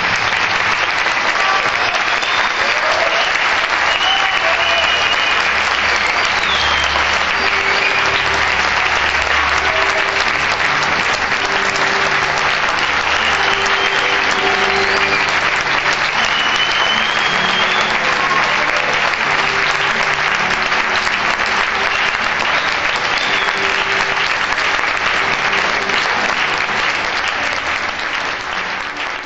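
Live audience applauding steadily after the act, with a few short whistles and calls over it; the clapping starts to die down near the end.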